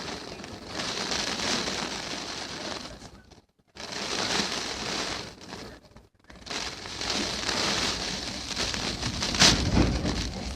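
Typhoon wind and rain beating against a window pane, heard through the glass with the phone pressed to it: surging gusts of rushing noise with rain rattling on the glass. The noise cuts out twice for a moment, and a heavy low buffet of wind hits near the end.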